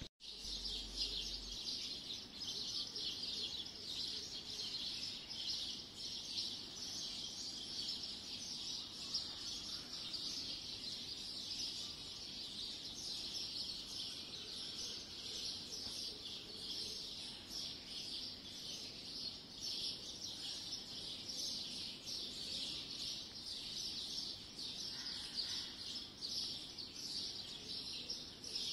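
Many birds chirping at once in a dense, steady, high twittering chorus, with a faint low background hum underneath.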